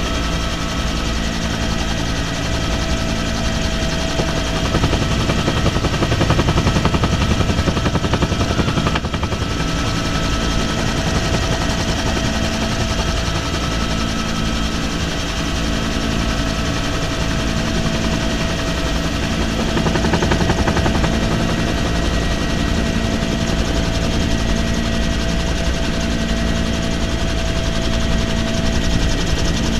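Military helicopter in flight, heard from inside the cabin with the side door open: the rotor's steady beat under a constant turbine whine and rushing air.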